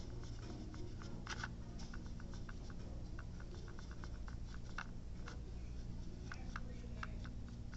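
Paintbrush dabbing and mixing acrylic paint in the wells of a plastic palette, making many quick, irregular light ticks and clicks, a few of them louder.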